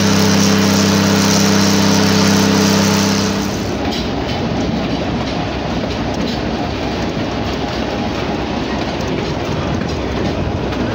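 The Cummins diesel engine of GE 80-ton switcher locomotive #113 runs with a loud, steady drone; the locomotive is working on only one of its two engines, the other having failed. At about three and a half seconds the drone stops and is followed by a lower, even rumble and clatter of train wheels rolling over the rails.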